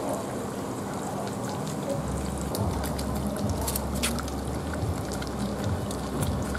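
Hot oil sizzling in a frying pan as river-worm fritters fry: a steady hiss with scattered crackles. A low hum comes in about two seconds in.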